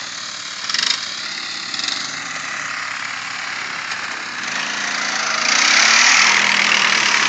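Several ATV engines running as the four-wheelers ride across the sand toward the microphone, growing much louder from about five seconds in.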